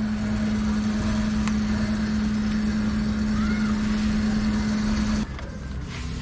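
A motor running with a steady low hum, which cuts off suddenly about five seconds in.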